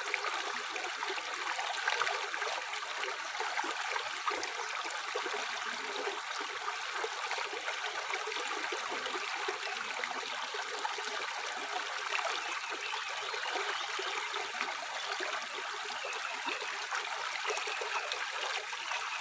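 Tap water running steadily into a sink, a continuous splashing stream.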